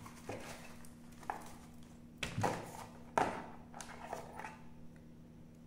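Handling noise from a black drawstring pouch being opened and a lavalier microphone and its cable being pulled out: a string of short scuffs and rustles, loudest about two and a half and three seconds in, over a steady low hum.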